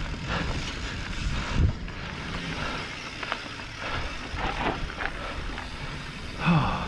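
Mountain bike rolling down a dry, rooty dirt singletrack: wind rushing over a GoPro Hero 8's microphone, tyres crunching on dirt, and the bike knocking and rattling over roots, with a few sharper knocks.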